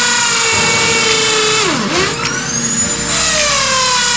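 Electric power drill running into the terrace floor, its motor whine steady. Its pitch drops sharply about two seconds in and climbs back up, then sags briefly again a second later.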